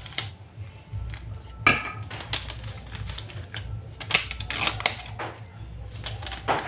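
Irregular clicks, taps and scrapes of a screwdriver and fingers prying at the metal frame of an LCD panel to open its seal, over a low steady hum.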